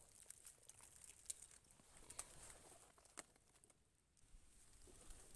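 Faint rustling in dry leaf litter with a few soft, scattered clicks from hands and tools being handled.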